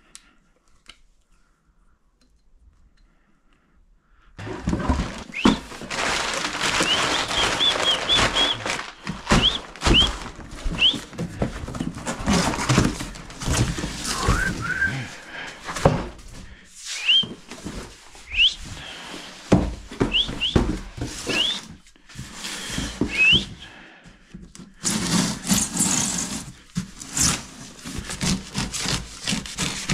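A cardboard box being handled and cut open with a meat cleaver: rustling, scraping and knocking, with scattered short rising squeaks. It starts about four seconds in after a quiet moment.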